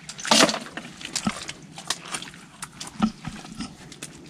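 Irregular clicks, knocks and rustles from people handling things and moving about while gathering snails in a swamp. The loudest is a sharp burst about half a second in.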